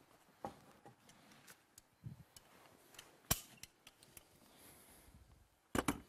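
Quiet clicks and handling noises from a hand caulking gun pressing out sealant, with one sharp click about halfway through and a short clatter near the end.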